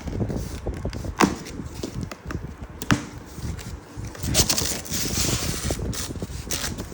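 Packaging being handled while unboxing a robot vacuum: scattered knocks and clicks, two sharp knocks in the first three seconds, and a rustle of wrapping about halfway through.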